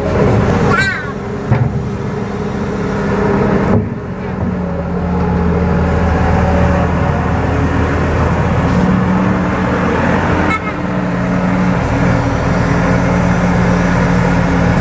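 KATO tracked excavator's diesel engine running steadily under work, with a brief dip about four seconds in. Short high rising squeals come about a second in and near the end.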